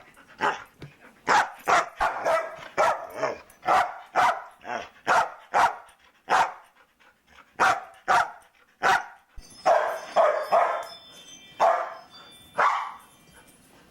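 A dog barking again and again, about twenty short sharp barks with a brief pause about halfway through.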